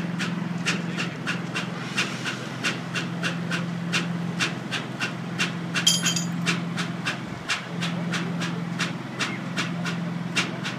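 Heavy military machinery running during the unloading of an M1A1 Abrams tank from an M1070 transporter trailer: a steady low hum with a sharp click about three times a second.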